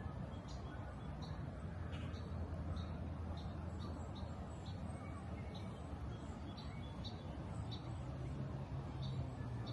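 Birds chirping: many short, high calls scattered throughout, over a steady low rumble.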